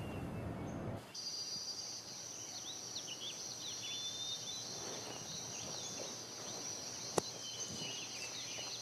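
Tropical garden ambience starting about a second in: a steady high-pitched insect drone with many short bird chirps over it, and one sharp click about seven seconds in.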